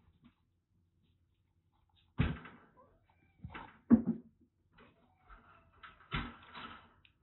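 Handling noise as a kitten is held and offered a plastic nursing bottle: three dull thumps with rustling, the loudest about four seconds in, and small scuffs between.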